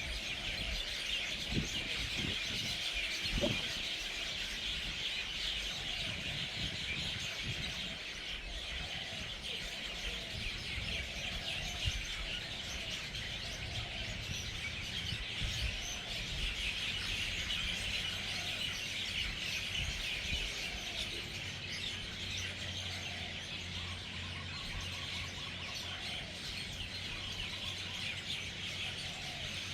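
A large flock of birds gathering at an evening roost, a dense, continuous chorus of overlapping chirps and calls from many birds at once.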